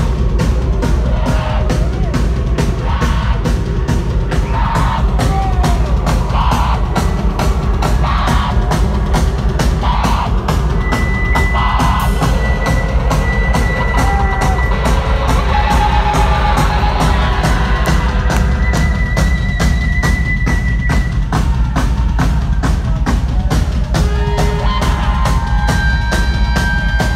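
Live rock band with drum kit and electric guitars playing a fast, steady beat, heard from the crowd with heavy, boomy bass. High, held guitar tones ring over the drums in the middle and near the end.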